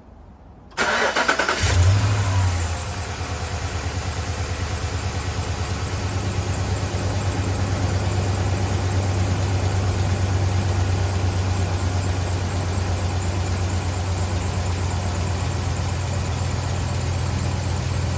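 5.7 Hemi V8 starting: a short crank of the starter about a second in, the engine catching with a brief flare of revs, then settling into a steady idle after work on a cylinder-5 misfire.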